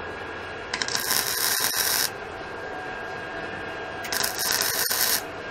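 Wire-feed (MIG) welder laying two short tack welds, each about a second of crackling sizzle that starts and stops sharply, the second about four seconds in.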